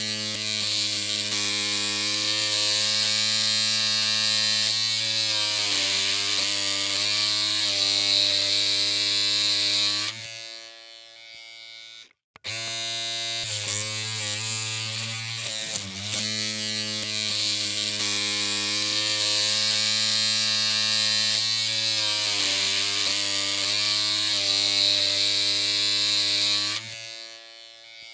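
Electric hair clippers running with a steady low buzz. The buzz dies away about ten seconds in, stops briefly, then starts again and runs until it fades out near the end.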